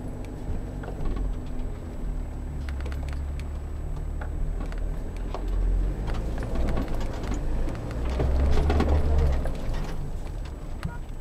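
Stock Force Gurkha diesel 4x4 crawling downhill in low-range four-wheel drive at walking pace: a low engine rumble with many small clicks, knocks and rattles from the vehicle as it picks its way over the rutted dirt track. The rumble swells twice, about a quarter of the way in and again toward the end.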